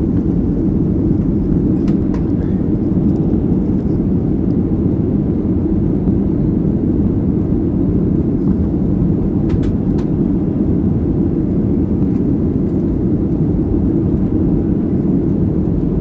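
Steady cabin drone of a Boeing 737 airliner in flight, heard from a window seat: engine and airflow noise, deep and even.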